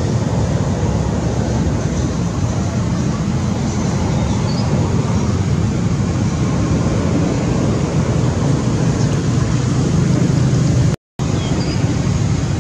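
Steady, loud low rumbling noise throughout, cut by a brief total silence about eleven seconds in.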